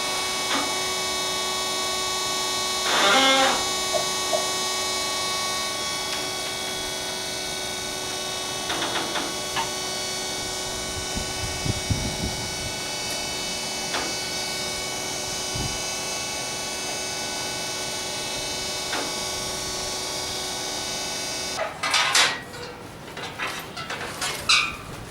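Motor of a diamond-blade copying saw running with a steady whine, with a short squeal about three seconds in; it stops abruptly about 22 seconds in, followed by a few sharp knocks and clatters.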